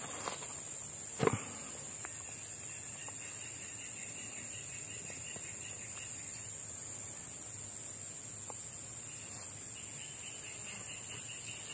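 Steady, high-pitched drone of insects in the surrounding vegetation, with one brief knock about a second in.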